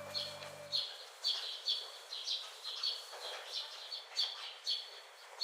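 A bird chirping over and over, short high notes at about two a second, over a faint hiss. A held music chord underneath stops just under a second in.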